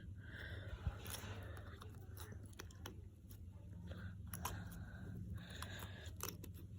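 Faint wet squishing, clicks and scraping of slime being worked out of its container by hand, over a steady low hum.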